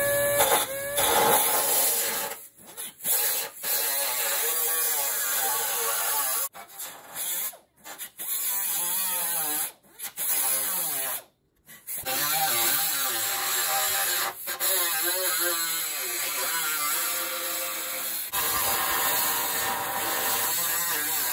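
Air-powered right-angle die grinder with a cutoff wheel cutting out rusted sheet metal on a car's frame rail. It spins up with a rising whine at the start, then runs in spurts with a wavering whine and hiss, stopping briefly several times.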